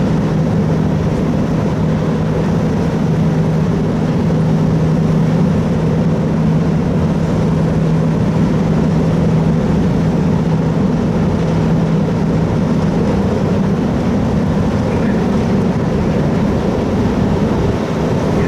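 Steady drone of the car ferry Orange 7's engines and shipboard machinery, with a constant low hum over a rushing background.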